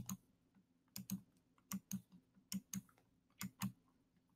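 Computer mouse clicking: about five double clicks, roughly one every 0.8 s, as the bars of an on-screen xylophone are clicked one by one to play back a short melody. The xylophone's notes themselves are not clearly heard.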